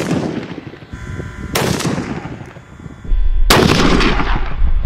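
Three rifle shots from a Nosler Mountain Carbon rifle chambered in 27 Nosler, fired from a bench about two seconds apart while sighting it in, each crack trailing off in an echo. A low rumble sets in about three seconds in.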